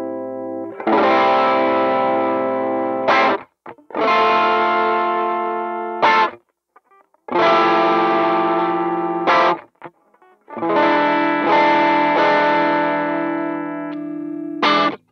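Electric guitar played through a Demonfx overdrive pedal, giving a distorted tone. Four strummed chords, each left ringing for a few seconds and then cut off by muting, with a short scrape as it stops.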